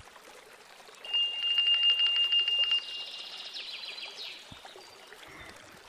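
Faint trickling water ambience, with a high, rapid trill starting about a second in and lasting about three seconds before it fades.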